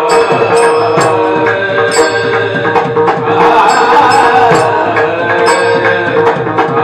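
Kirtan devotional music: mridang drumming with regular bright strikes about twice a second over a steady held drone note.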